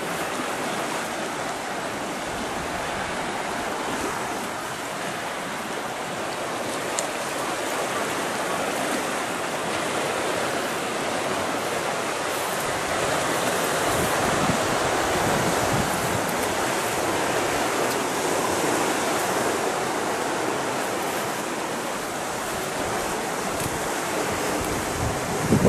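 Surf on a rocky shore mixed with wind through trees and grass: a steady rushing that swells a little midway.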